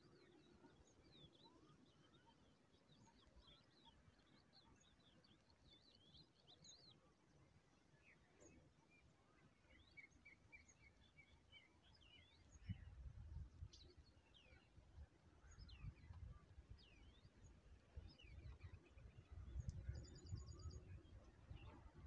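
Faint chirps and short whistled calls of several songbirds, scattered throughout. From about halfway through, an irregular low rumbling comes and goes underneath.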